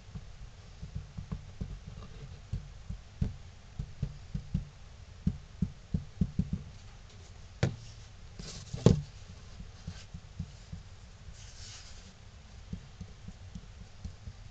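Plastic wood-glue bottle tapping and knocking lightly on cut-out wooden pieces as glue is dotted on, then a sharper knock with a brief rustle about eight to nine seconds in.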